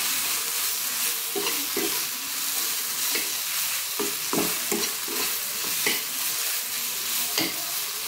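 Ground soya chunk paste sizzling in a little oil in a kadai, with a steady hiss, while a metal spatula stirs it and scrapes against the pan in short strokes every second or so.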